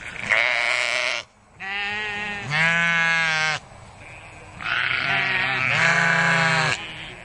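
Sheep bleating: a run of about five wavering bleats, each roughly a second long, with short pauses between them.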